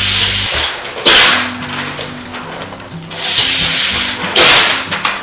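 A knife cutting through chicken wing joints against a bamboo cutting board: four short scraping strokes, the second and fourth the loudest. Background music plays underneath.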